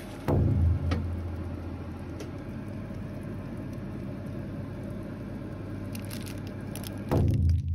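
An oven running with a steady low electrical hum and a fan-like hiss. The hum swells louder briefly just after the start and again near the end.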